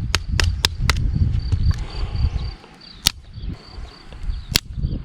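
Sharp clicks from the Victorinox Forester pocketknife being worked during the tip test: a quick run of four, about four a second, then two single clicks later, over low rumbling handling noise.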